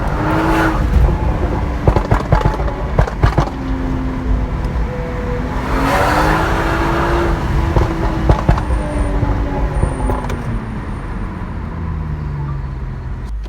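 A BMW 340i's turbocharged three-litre inline-six with a Stage 2 tune pulls up through the revs twice, then falls back slowly. It gives sharp exhaust pops and crackles in the first few seconds and a few more as the revs drop.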